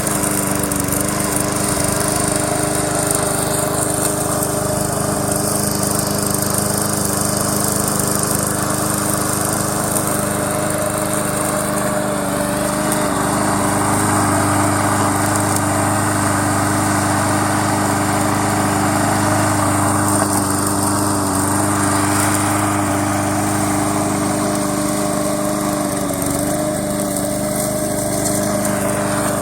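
Lawn mower engine running steadily as the remote-control mower drives, a constant hum with a lower note joining about halfway through.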